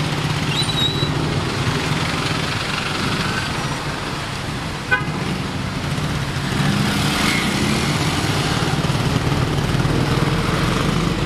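Motorcycle engine running while riding through city traffic, with steady road and wind noise. A short horn beep sounds about five seconds in, and the engine gets a little louder from about six and a half seconds as it picks up speed.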